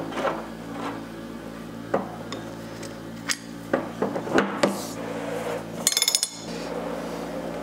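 Metal clicks and knocks of a new water heater element being turned into its tank fitting by hand and an element socket being fitted over its hex, with a quick rattle of clicks about six seconds in.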